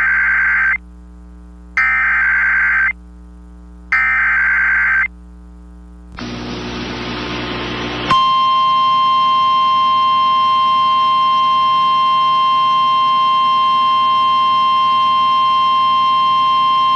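Emergency Alert System SAME header: three bursts of warbling data tones, each about a second long, with a low hum between them. Then a couple of seconds of rising static hiss, and about eight seconds in, the NOAA Weather Radio 1050 Hz warning alarm tone, a single steady tone. Together they signal the start of a new weather warning, here a severe thunderstorm warning.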